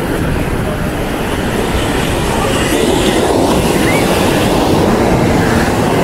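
Beach ambience: a steady low rumble of wind buffeting the microphone mixed with surf, growing slightly louder.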